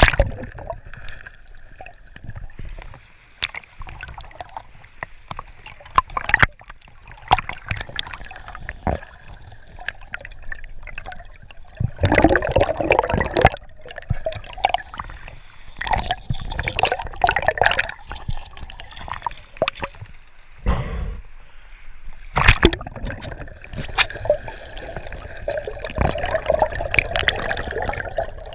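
River water heard underwater: gurgling current and bubbles, with many scattered clicks and knocks, busiest around the middle and again near the end.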